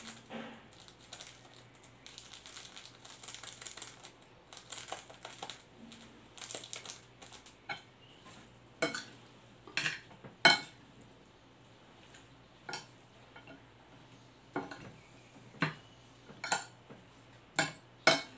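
A metal fork clinking against a glass plate while mixing instant noodles with their sauce: about ten sharp clinks spaced irregularly over the second half, the loudest about ten seconds in. Before that, softer crackling from seasoning sachets being torn and squeezed.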